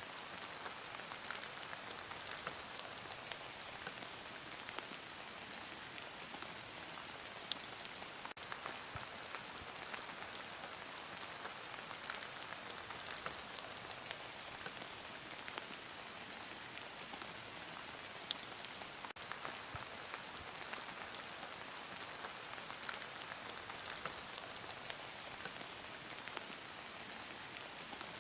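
Heavy rain falling steadily, an even hiss with many small drop ticks and taps scattered through it.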